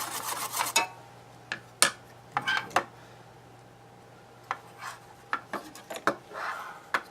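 Rasping scrubbing on a circuit board, freshly wetted with alcohol, that stops about a second in. It is followed by a string of short, sharp clicks and taps as small tools and parts are handled on the workbench.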